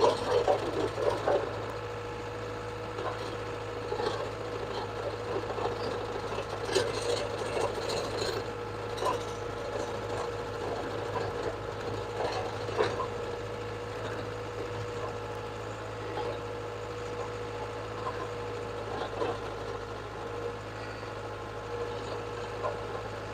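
Caterpillar 287B skid steer's turbocharged diesel engine running at a steady speed, with scattered clanks and rattles from the machine, a cluster of them in the first second or so.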